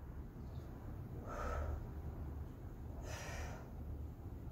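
A woman breathing audibly through a paced exercise, two breaths about a second and a half and three seconds in, over a low steady hum.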